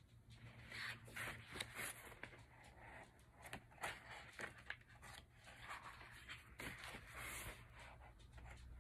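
Faint paper rustling and soft clicks as the pages of a large photobook are handled and turned, in short scattered bursts.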